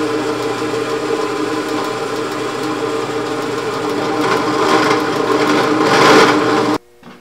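Bench drill press running, its bit boring into a wooden workpiece clamped in a drill-press vise; the cutting noise grows louder from about four seconds in, and the sound cuts off abruptly near the end.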